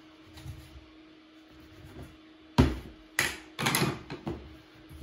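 Bench scraper cutting a ball of pizza dough in two and knocking on the work surface beneath: one loud, sharp knock a little past halfway, then a quick run of lighter knocks.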